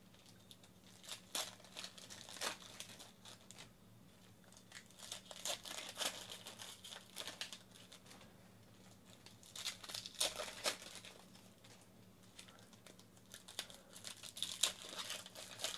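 Foil wrappers of baseball card packs being torn open and crumpled by hand: faint crinkling and tearing in short bursts every few seconds.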